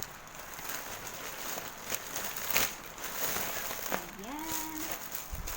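Parcel packaging rustling and crinkling as it is handled, with a few sharper crackles.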